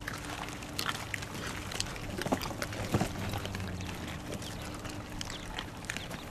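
Dogs chewing and gnawing raw chicken pieces, with many scattered small clicks and crunches, over a faint steady low hum.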